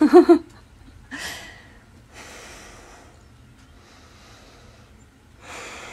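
A woman breathing heavily between phrases: a short voiced sound at the start, then a few breathy sighs and breaths, the longest near the end.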